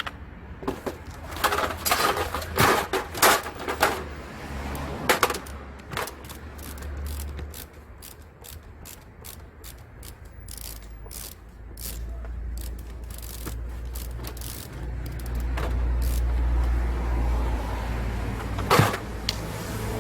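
Hand tools on a car alternator: metal clinks and knocks as the bolts holding the alternator casing are undone with a 10 mm socket, including a run of quick clicks in the middle. A steady low rumble sits underneath and grows louder in the second half.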